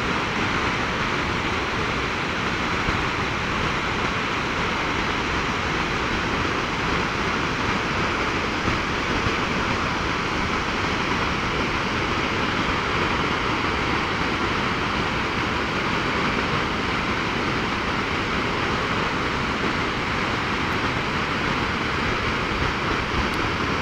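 Large waterfall: heavy water falling and crashing onto rock, a steady, loud, even rush with no let-up.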